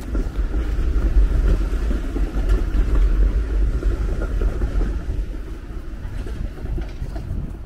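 Low, steady rumble of city street traffic, easing off a little near the end.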